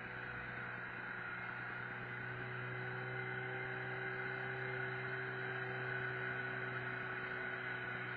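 Steady, muffled drone of an outrigger boat's engine running at cruising speed, holding one even pitch.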